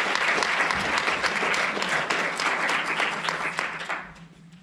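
Audience applauding, many people clapping at once, dying away about four seconds in.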